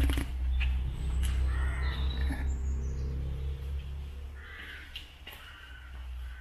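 A crow cawing twice, about three seconds apart, over a steady low rumble and a few scattered clicks.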